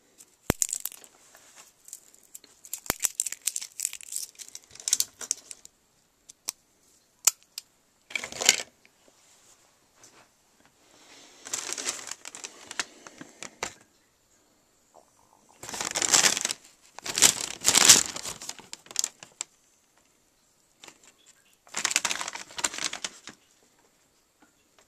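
Brown paper bag being handled and crinkled in several bursts of rustling, with a few sharp clicks in between.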